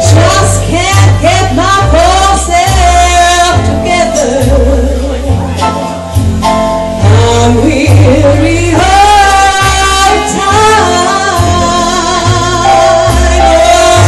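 Live music: a woman singing into a microphone with a wavering vibrato, over a band with a heavy bass line.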